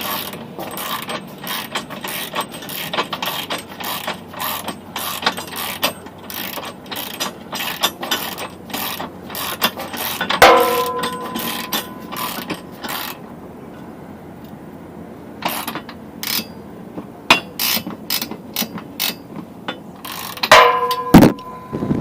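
Socket ratchet wrench clicking in quick runs as trailer-hitch bolts are run in, then in sparser strokes. Twice, about ten and twenty seconds in, metal clinks against metal with a short ring.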